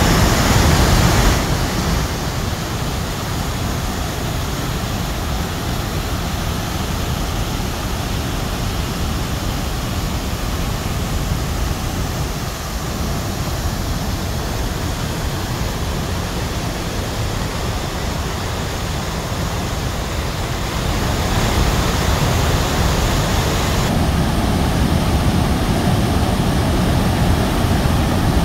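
Steady rush of a fast mountain stream tumbling over rocks as white water. It is louder for the first second or so, drops back, then swells again about three-quarters of the way through.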